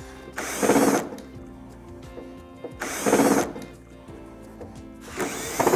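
Cordless drills spinning screws out of an aluminium access panel: three short bursts of about half a second each, the first about a second in, the second near the middle and the third near the end.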